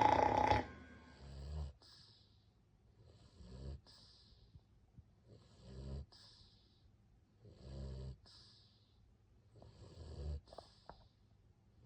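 A pet snoring in its sleep: a low snore about every two to two and a half seconds, each followed by a short hiss. The snore at the very start is the loudest.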